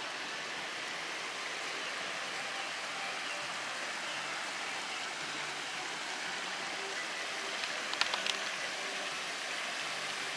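Small woodland stream rushing over little cascades: a steady rush of water. About eight seconds in, a quick cluster of three sharp clicks sounds over it.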